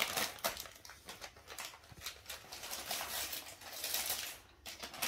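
Gift wrapping paper crinkling and rustling as a present is unwrapped, a quick run of crackles that pauses briefly near the end.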